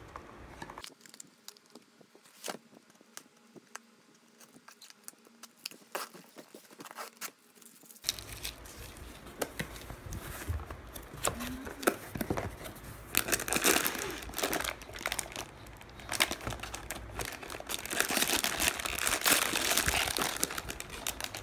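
Cardboard box flaps and plastic-wrapped rolls being handled, crinkling and rustling with scattered clicks. The handling becomes louder and busier about eight seconds in.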